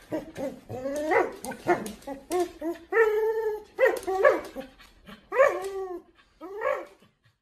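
A husky-type dog yipping, whining and barking in short bending calls, about one or two a second with one longer held call partway through, while it tugs on a rope toy in play.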